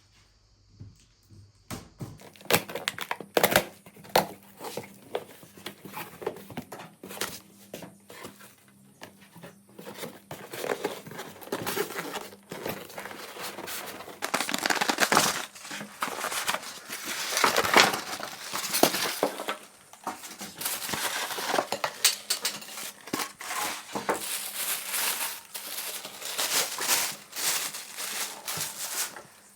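Packaging being handled and torn open: irregular crinkling, rustling and tearing of wrapping with scattered sharp clicks and knocks, starting about two seconds in.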